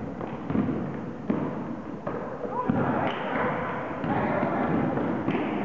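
Basketball bouncing on a gym floor, a few irregular echoing thuds as the ball is dribbled up the court, with voices in the gym.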